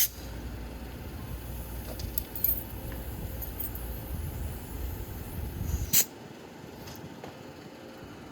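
A freshly plugged car tire being inflated with compressed air: a low steady rumble with a few light metallic clicks, then a short sharp hiss of air about six seconds in, after which the rumble stops.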